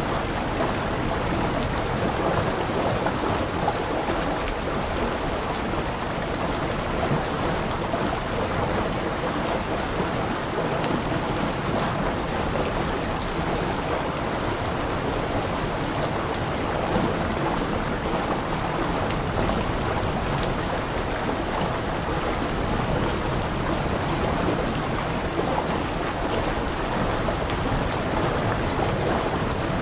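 Steady rain falling, an even, unbroken hiss of drops with no let-up or change.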